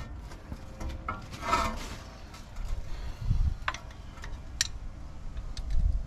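Scattered light metal clinks and rattles of brake pads and their hardware being handled, with a dull low rumble now and then.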